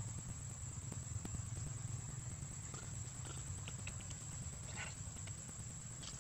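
Outdoor ambience: a steady high-pitched insect drone over a low rumble, with a few faint short squeaks or chirps about three to five seconds in.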